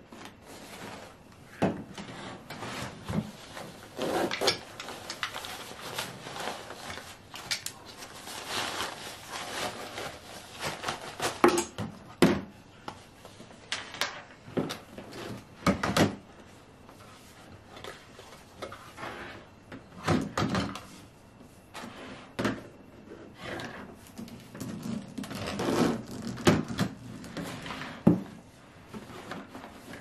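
Plastic parts of a Revair hair dryer being handled and set down on a wooden desk: irregular knocks and clatter, with rubbing and rustling of its fabric cover and corrugated hose. The loudest knocks come around the middle and near the end.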